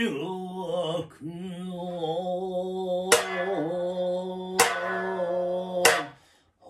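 A man singing long, drawn-out notes in biwa chanting style, accompanied by three sharp plectrum strikes on the biwa at about three, four and a half and six seconds in. The voice breaks off briefly about a second in and again just before the end.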